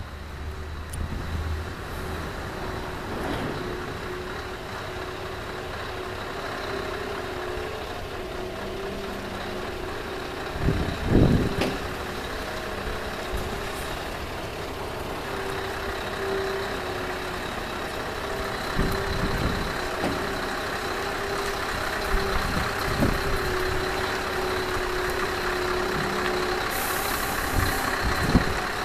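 Scania heavy truck's diesel engine running steadily as it slowly pulls a low-loader trailer carrying a large steel tank. A few short, loud sudden noises come over the engine, the loudest about eleven seconds in.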